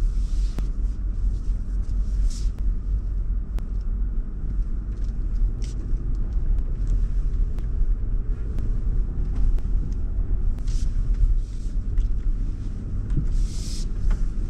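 L405 Range Rover crawling forward off-road in low range with the mud-and-ruts terrain setting: a steady low engine and drivetrain rumble, with scattered clicks and knocks and a few short hisses.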